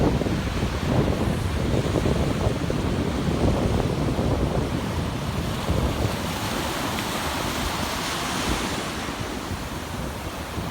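Wind buffeting the microphone over the steady wash of surf at the water's edge. A brighter hiss of rushing water comes in about six seconds in and eases off near the end.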